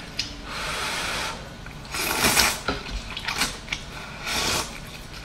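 Hot and sour noodles slurped from a cup, in a run of about four wet, hissing slurps. The longest and loudest comes about two seconds in.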